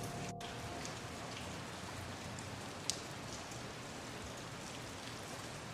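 Steady rain falling, an even hiss of many drops, with one sharper drop tick about three seconds in.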